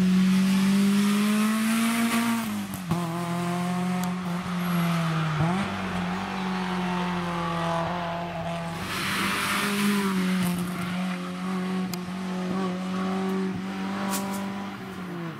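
BMW M3 E30 rally car's four-cylinder engine at full throttle. The note rises as it accelerates and drops sharply at each gear change or lift, several times over.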